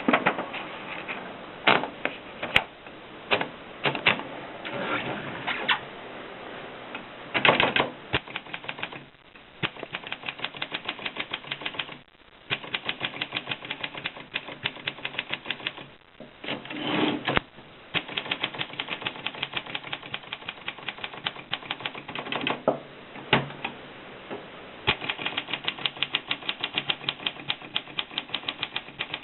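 Kolibri typewriter being typed on: runs of fast, even keystrokes, about ten a second at their quickest, broken by short pauses and a few louder, longer clatters, one about seven seconds in and one about seventeen seconds in.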